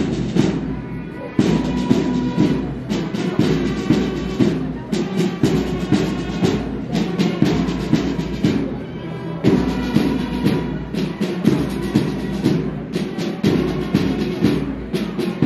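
School marching band playing a march: trumpets and euphoniums over repeated drum beats.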